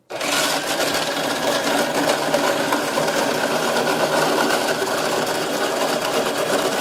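Cuisinart electric snow cone maker starting up abruptly and crushing ice, a loud, steady grinding rattle.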